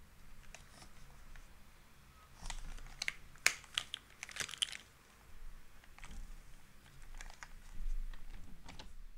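A few scattered keystroke clacks on a custom mechanical keyboard with lubed vintage West German Cherry MX Black linear switches on an aluminium plate. The keystrokes are bunched in a short flurry in the middle, with a few single keys before and after.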